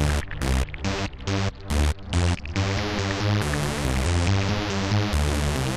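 Electronic background music: a rapidly chopped, stuttering synth pattern for about the first two and a half seconds, then a steady dense synth texture over a heavy bass line.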